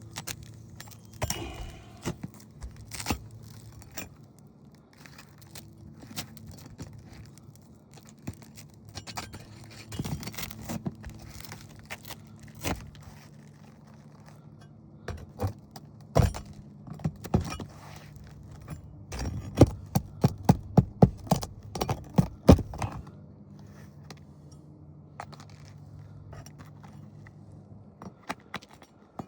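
Old roofing nails being worked out of asphalt shingles with metal tools: scattered clicks and scrapes, then a quick run of sharp taps, about three a second, in the last third. A faint steady low hum runs underneath.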